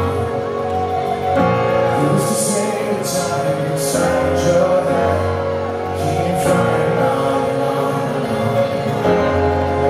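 Live rock band playing, with a male lead singer singing over electric guitar and drums; several cymbal crashes ring out through it.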